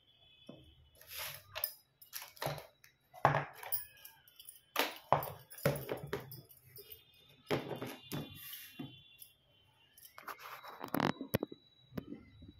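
Small metal ornaments and objects clinking and knocking as they are handled and set down. A dozen or so sharp, irregular strikes.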